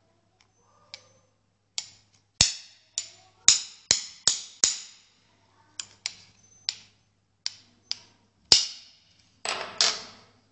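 A hammer rapping the body of a small brass padlock: about fifteen sharp metallic knocks, irregularly spaced, some in quick runs. The padlock is being struck to jar its locking mechanism open without the key.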